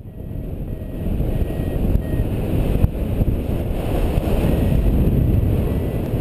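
Airflow of a paraglider in flight buffeting the microphone: a steady, loud wind rumble that fades in over the first second, with a single light knock nearly three seconds in.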